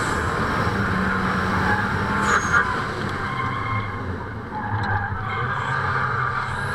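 Car engine running with tyres skidding as the car drifts on a race track, heard from a camera mounted on the outside of the car. The engine note holds steady, then drops lower about two seconds in.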